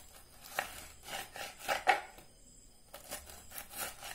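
A knife sawing through the tough rind of a pineapple wedge on a cutting board: a run of irregular short scraping strokes.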